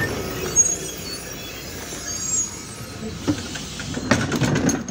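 Cabin noise inside a MAZ-105 articulated city bus standing at a stop: a steady engine and interior hum, with a cluster of clattering knocks near the end.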